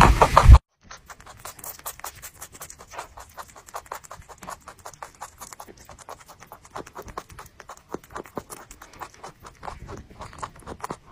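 Rabbit chewing a piece of crisp green vegetable close to the microphone: fast, soft crunching clicks. A louder crunching in the first half second stops abruptly.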